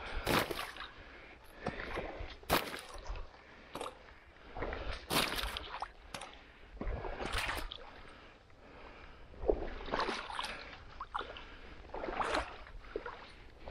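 Waders sloshing and splashing through shallow water, one uneven step about every second, as the hunter wades out to check the depth.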